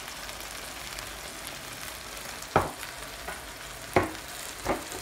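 Okra, leeks, tomatoes and smoked fish frying in oil in a non-stick frying pan, a steady sizzle, with three sharp knocks: one about two and a half seconds in, the loudest, and two more near the end.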